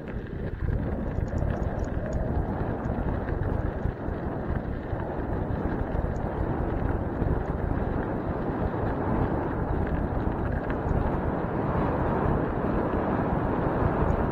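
Steady wind rumble on a moving microphone, with a few faint ticks and rattles over it.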